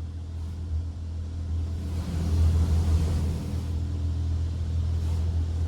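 PDQ Laserwash M5 touchless car wash spraying clear coat protectant onto the car, heard from inside the cabin: a steady low rumble with the hiss of spray on the body that swells about two seconds in and eases off near four.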